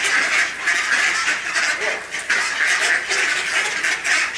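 A flock of mallards quacking, many birds calling over one another in a dense, continuous chatter.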